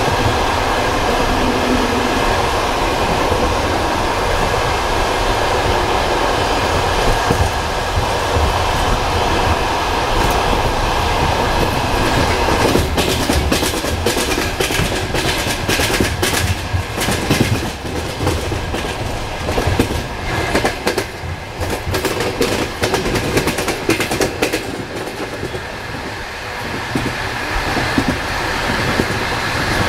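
Train rolling past with its wheels knocking over the rail joints: a steady rumble, then from about halfway a rapid run of sharp clacks that thins out near the end.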